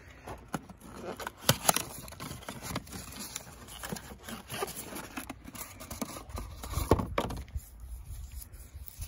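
Cardboard box of a Toyota oil filter being opened by a gloved hand and the metal spin-on filter slid out and handled: irregular rustling, scraping and sharp clicks, loudest about a second and a half in and again near seven seconds.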